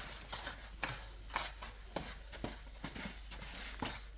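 Scissors cutting: a series of irregular, crisp snips.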